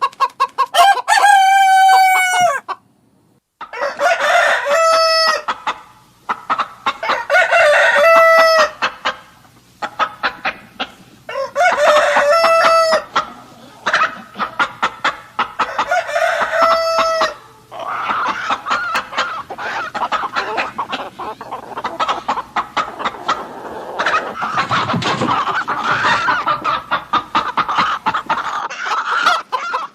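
Roosters crowing about five times, a few seconds apart, each crow lasting about a second and a half, with hens clucking in between. From a little past halfway the crowing stops and a whole flock of chickens clucks and chatters continuously over one another.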